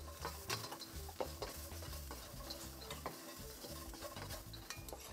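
Wooden spatula stirring and tossing crispy fried chicken pieces and peppers in a wok, with repeated light clicks and scrapes against the pan and a faint sizzle. It is the final mix that spreads the salt, white pepper and bouillon seasoning evenly.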